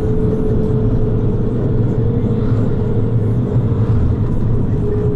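Cabin noise inside a minibus driving along a highway: a steady low rumble of engine and tyres on the road, with one constant whine held through it.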